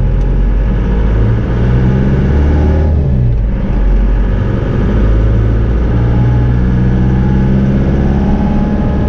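Cummins 4BT four-cylinder turbo diesel in a Ford F-150 pickup running under way, heard from inside the cab. The engine note shifts up and down in pitch a few times as the truck is driven.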